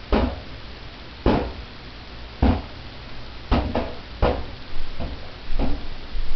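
A back scratcher repeatedly striking a big rubber balloon: about eight sharp hits roughly a second apart, each ringing briefly, with two coming in quick succession midway.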